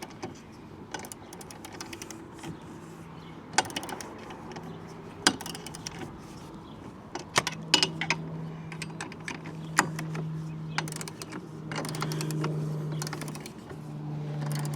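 Hand ratchet wrench clicking in irregular runs as a nut is turned on a metal mounting bracket, with light metal clinks of tools and hardware. A steady low hum runs underneath, growing louder in the second half.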